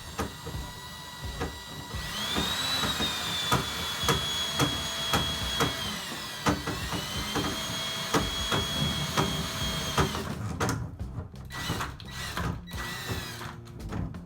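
Drill driving a Ridgid drum drain snake, its motor whining as it spins the cable into the blocked tub drain. The motor winds up about two seconds in, eases off briefly in the middle, spins up again and stops near the end, with clicks and knocks of the cable and drum throughout.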